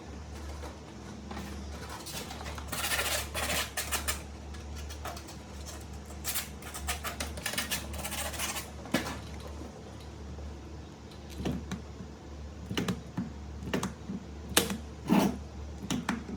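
Small hard objects being handled, with clusters of clicking and rattling and then single sharp clicks. A steady low hum runs underneath.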